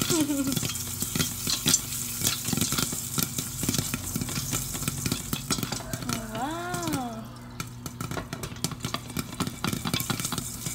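Popcorn kernels popping and sizzling in hot oil in a pot: a dense, irregular run of small sharp crackles and pops.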